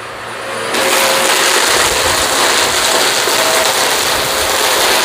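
Hoover multi-cyclonic upright vacuum running over carpet strewn with dirt and kitty litter, its brush roll throwing grit around as it sucks it up with a steady hiss and rattle. It gets louder about a second in and then holds steady.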